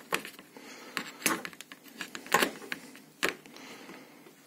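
Steel vernier caliper being handled, its sliding jaw opened wider: several light clicks and taps at irregular intervals, the loudest two near the end.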